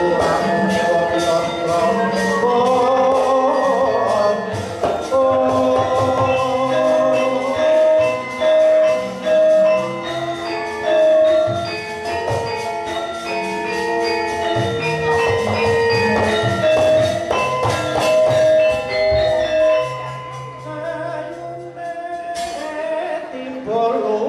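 Javanese gamelan playing for a wayang orang dance: bronze metallophones ring out a melody of held, struck notes over a drum, with singing voices and fast metallic clicks over the first few seconds. Near the end the playing thins out to a low held tone.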